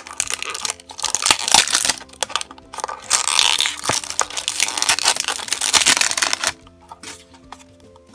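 Stiff, shiny plastic wrapper of a small blind-box toy package being torn open and crinkled by hand. The crinkling is dense for about six seconds, then dies down near the end.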